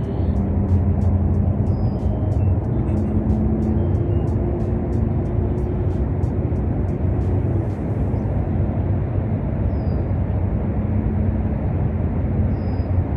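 Boat motor running steadily with a low hum, over a wash of noise. Faint, evenly spaced clicks run along with it for about the first half, then stop.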